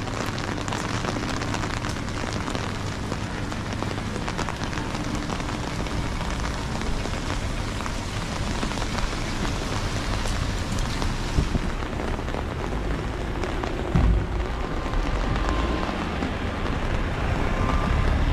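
Heavy rain falling, a dense steady patter of drops. A low thump about fourteen seconds in.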